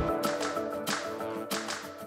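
Background music: the deep bass drops out at the start, leaving held notes over light clicking percussion.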